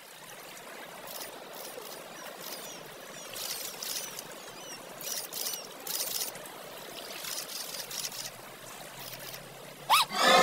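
Gentle water lapping and trickling around a small boat on calm water, with faint high chirps and a few short hissy bursts. Near the end comes a quick rising squeal.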